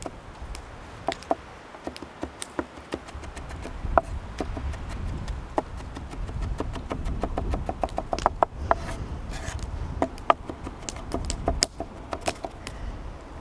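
Irregular sharp taps and clicks, with a quick run of about six taps a second in the middle, over a low rumble.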